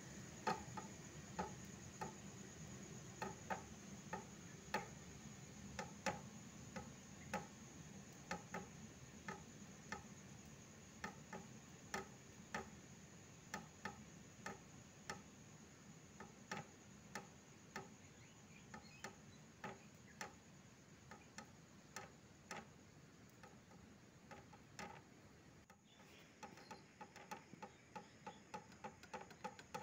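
Faint ticking, about one to two ticks a second. After a short break near the end it turns faster and more even.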